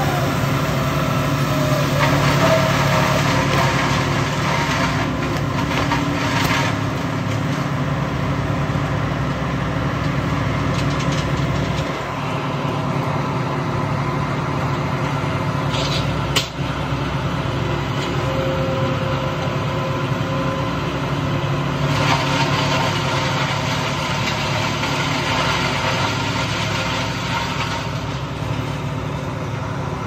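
Crane truck's engine running steadily under a grapple-saw boom, with louder rushing stretches a couple of seconds in and again from about 22 to 28 seconds, and a single sharp crack about sixteen seconds in.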